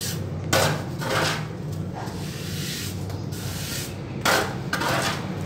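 Hand trowel scraping and smoothing wet cement mortar onto a concrete shelf edge in about five short strokes, over a steady low hum.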